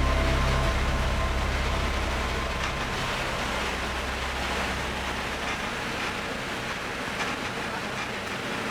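Steady running noise of a vehicle with a few faint clicks, while held low music tones fade out in the first seconds.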